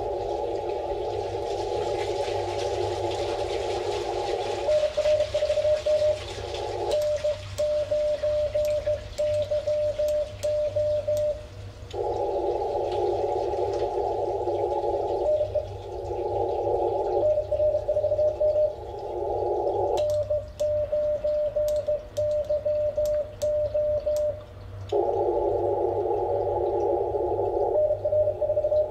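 Morse code from an Icom IC-7300 transceiver in CW mode. Stretches of hiss through the narrow CW filter, with a steady keyed tone in it, alternate twice with stretches where the hiss drops out and only the on-off beeping of the sidetone is heard. In those stretches the operator is sending his own call on the paddle while the receiver is muted.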